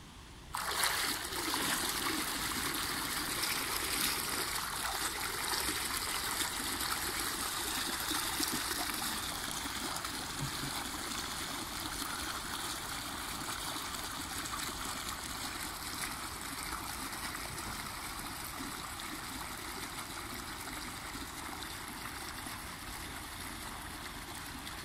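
Dolphin robotic pool cleaner's pump jetting water up through the pool surface: a steady gushing, splashing water sound that starts suddenly about half a second in.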